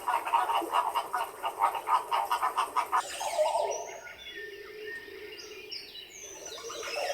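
A fast, rhythmic pulsing animal call, about five or six pulses a second, frog-like, for about three seconds. It then gives way abruptly to birds singing with high whistled notes and chirps.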